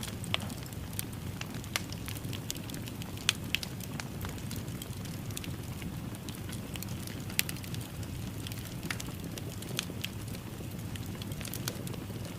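Fireplace fire crackling: irregular sharp pops and snaps over a steady low rush of burning, with a few louder pops.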